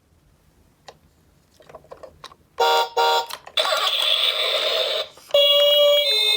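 Toy ambulance handled with a few light plastic clicks. Its electronic sound unit then plays two short beeps and a hissing burst, and about five seconds in starts a two-tone hi-lo ambulance siren that alternates between a higher and a lower pitch.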